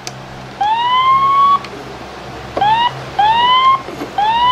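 A toy fire truck's electronic siren sound effect, set off by pressing the buttons on its side panel, plays through its small speaker. It gives four rising wails: the first and last about a second long, the middle two shorter.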